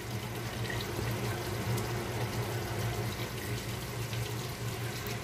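Steady low hum with a faint even hiss: background noise, with no distinct event standing out.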